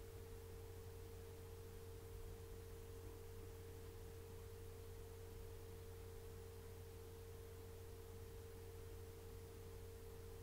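Near silence: a faint, steady low hum with a single steady tone above it, unchanging throughout.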